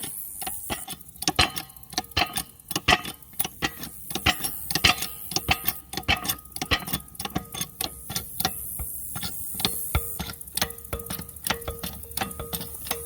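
Rapid, irregular clicking and light knocking, with a short tone pulsing on and off in the last few seconds.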